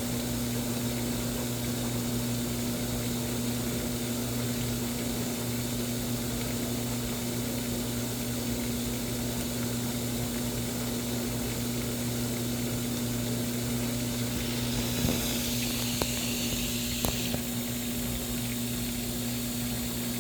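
Washing machine running a cycle: a steady low hum with water noise. A brief hiss and a few sharp clicks come about fifteen seconds in.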